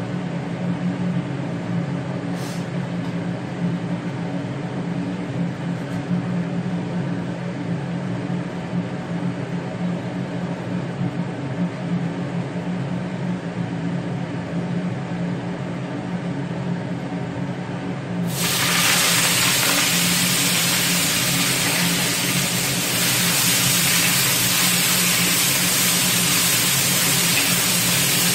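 A steady hum, then about eighteen seconds in a sudden loud sizzle as celery leaves and chilli peppers hit hot oil in a wok; the sizzling continues as they are stir-fried.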